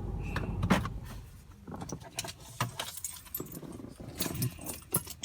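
A car engine's low rumble stops about a second in, followed by keys jangling and clicking in irregular bursts.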